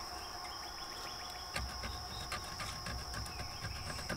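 Insects droning steadily at a high pitch, with light clicks and taps of handling from about a second and a half in.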